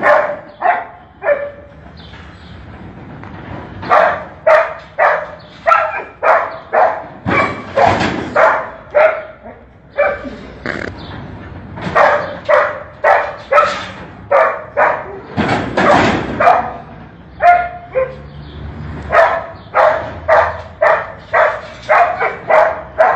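Dog barking over and over in quick runs of sharp barks, about two a second, with a short lull near the start.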